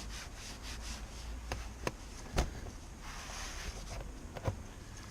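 Parts being handled while work goes on in a car's engine bay: rubbing and scraping, with a few sharp clicks or knocks. The loudest knock comes about two and a half seconds in.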